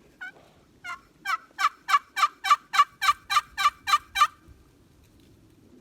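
Turkey yelping: a series of about a dozen short yelps, about three a second, each note breaking downward in pitch, building louder and then stopping.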